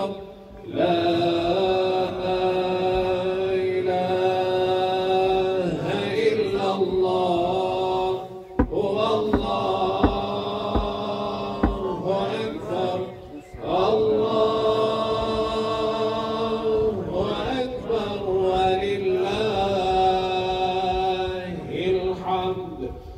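A man chanting Islamic religious recitation at a graveside burial, holding long, wavering notes in phrases several seconds long with short pauses for breath. A few dull low thumps come around the middle.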